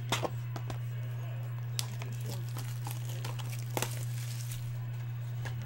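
Cellophane shrink-wrap on a trading card box crinkling as it is handled and unwrapped by hand, with a few sharp crackles. A steady low hum runs underneath.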